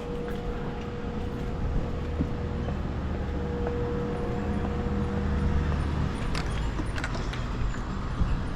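A vehicle engine running with a steady low rumble that swells a little around the middle, under a faint steady hum; a few light clicks come in the second half.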